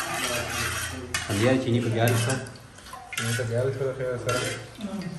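Metal spoon stirring water in a steel pot, clinking against the pot's side several times.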